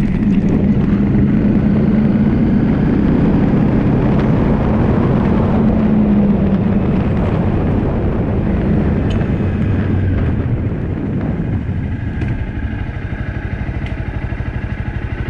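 Motorcycle engine running under way, its note dropping in the second half as it eases off, then settling into an even idling pulse over the last few seconds.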